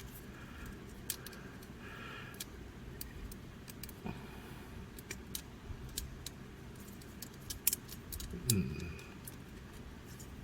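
Scattered small clicks and taps of a transforming-robot toy figure's parts being handled and shifted into place. A brief low voice sound comes near the end.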